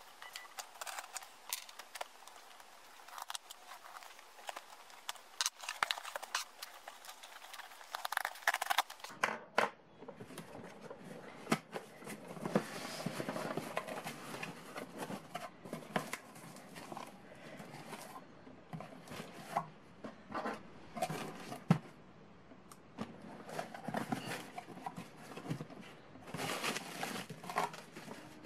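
A pen point slitting the packing tape on a cardboard box, then the box's cardboard flaps being pulled open and handled, with irregular scraping, tapping and rustling.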